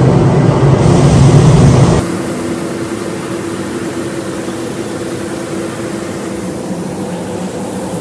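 Farm grain-handling machinery running steadily. For about two seconds there is a loud low drone from the running grain dryer. Then the sound drops abruptly to a quieter, even hum with a few held tones, as a grain auger runs, fed shelled corn from a gravity wagon.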